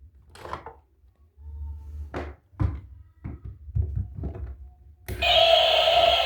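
Plastic toy vehicles handled with a series of short knocks and taps. About five seconds in, a battery-powered toy vehicle's electronic sound effect switches on: a loud, steady electronic tone.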